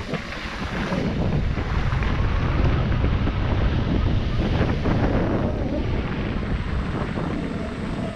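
Wind buffeting the camera's microphone as a mountain bike rides downhill, with a steady low rumble and frequent knocks and rattles from the bike going over rough, rocky ground.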